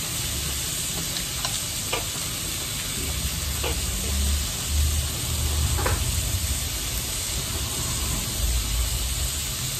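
Beef rolls wrapped around enoki mushrooms sizzling steadily on a hot tabletop electric grill, with a few light clicks.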